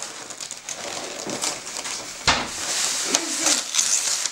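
Gift-wrapping paper crinkling and tearing as it is pulled off a present by hand, with a sharp rip about two seconds in.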